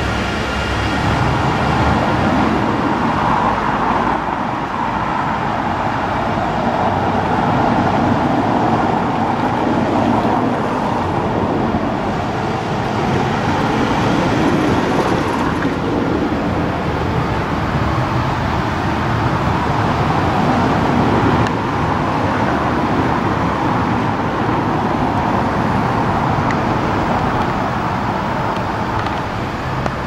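Steady road traffic noise, with cars passing one after another in slow swells.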